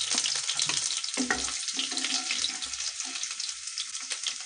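Garlic cloves and cumin seeds sizzling in hot oil in a kadhai, a dense crackling hiss that eases off slightly toward the end, with a wooden spatula stirring in the pan.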